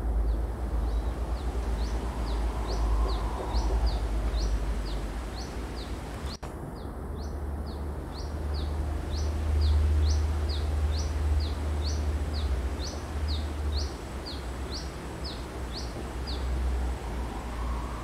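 Brown-throated sunbird singing: a long run of short, high chirps, two or three a second, alternating rising and falling notes, with a brief break about six seconds in and stopping shortly before the end. A steady low rumble runs underneath.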